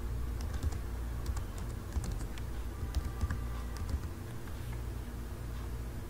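Computer keyboard keys being typed in a quick, irregular run that stops about four seconds in, over a steady low hum.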